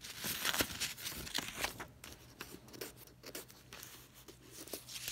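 Paper rustling as the pages of an old book are handled, with scattered light clicks and taps, busiest in the first two seconds.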